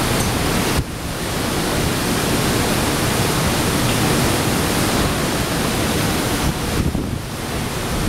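Steady rushing noise of heavy typhoon rain and wind, with a brief dip about a second in.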